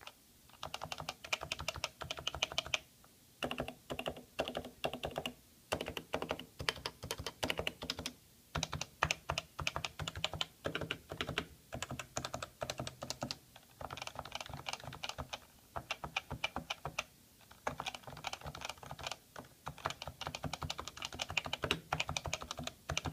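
Typing on a Happy Hacking Keyboard Professional 2, with its Topre electrostatic capacitive switches. The rapid keystrokes come in runs broken by brief pauses of about half a second.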